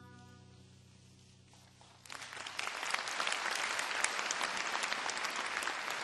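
A held trumpet note fades away at the end of a piece. About two seconds in, the audience breaks into applause that continues steadily.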